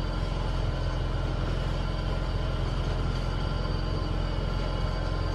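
Steady low rumble of a vehicle engine running outside the open front door, with a faint constant hum and no change over the few seconds.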